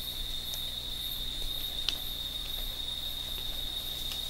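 Night insect chorus: a steady, high-pitched cricket-like trill, with a fainter, higher insect call pulsing about twice a second. A single faint click sounds about two seconds in.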